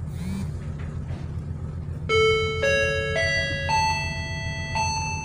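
A ferry's engine drones steadily and low. About two seconds in, the ship's public-address announcement chime starts: a melody of clear bell-like notes, changing about twice a second.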